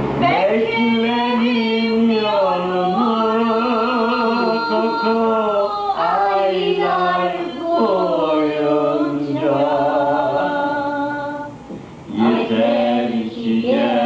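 A man singing a slow, mournful song unaccompanied, holding long notes with ornamented, wavering pitch. He breaks between phrases, with a clear pause for breath about twelve seconds in.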